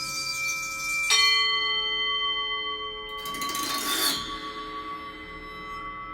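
Experimental music for prepared piano, bowed Tibetan singing bowls, crystal glasses and recorder: several bell-like tones ring on together. About a second in a sharp strike sets off a new cluster of ringing tones, and around three seconds in a breathy, hissing swell rises and fades over about a second.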